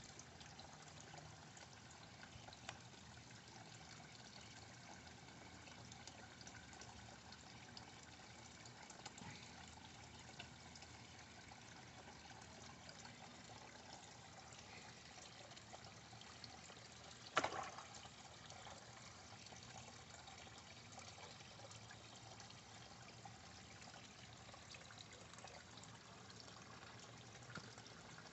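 Faint, steady trickle of water in a backyard koi tank, close to silence. One short, louder knock stands out about seventeen seconds in.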